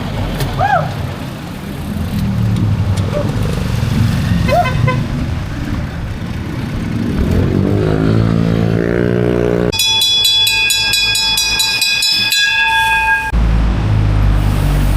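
A motor vehicle's engine running, rising in pitch as it speeds up, then a vehicle horn held for about three and a half seconds, followed by a heavy low rumble.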